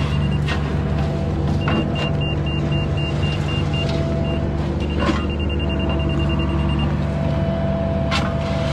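Engine of a piece of construction equipment running steadily, with a run of short, rapid high-pitched beeps in the middle and a few sharp knocks.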